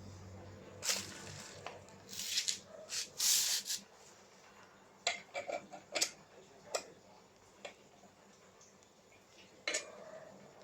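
Metal engine parts and tools clinking and scraping as they are handled, a cluster of scrapes and knocks in the first few seconds, a quick run of clinks around the middle and a last clink near the end.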